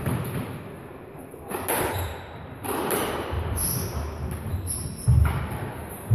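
Squash rally: the hard rubber ball cracking off rackets and walls in several sharp hits, the loudest near the end, with thuds of footsteps and short high squeaks of shoes on the wooden court floor, echoing in the enclosed court.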